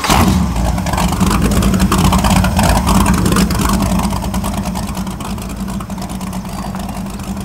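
A sport powerboat's engine running with a steady low drone, loudest in the first few seconds and easing slightly about halfway through.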